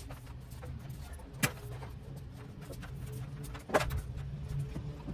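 Two sharp knocks from construction work on the eaves, about two seconds apart with the second the louder, over a steady low hum of an engine running.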